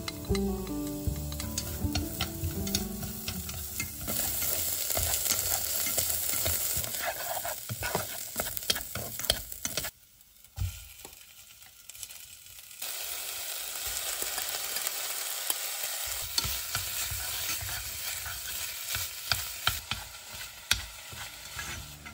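Diced red onion frying and sizzling in hot oil in a saucepan, stirred with scraping and clicking against the pan. The sound drops away briefly around ten seconds in, then the sizzling and stirring go on as meat is added.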